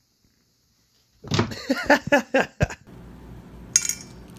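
About a second of near silence, then a loud run of about five short pitched vocal syllables that cuts off abruptly. After that comes a low steady hum with a couple of sharp clinks against a dish near the end.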